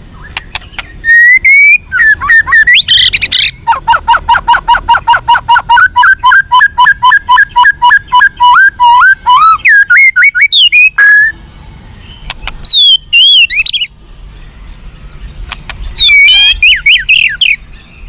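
White-rumped shama (murai batu) singing its aggressive 'fighter' song: a few sharp clicks and whistled glides, then a long rapid run of evenly repeated notes that climbs at the end, followed by two short varied phrases.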